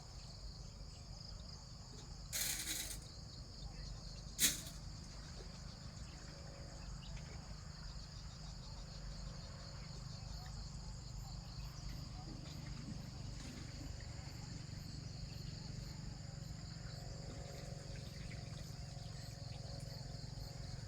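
Steady chorus of insects such as crickets, with a low rumble underneath. A short hiss comes about two and a half seconds in, and a sharp click about four and a half seconds in.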